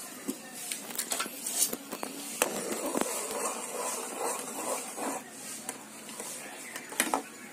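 Thick muskmelon pulp bubbling in a metal kadai over a wood fire, with scattered pops and crackles. From about two and a half seconds in, a perforated ladle stirs and scrapes through the pulp for a few seconds.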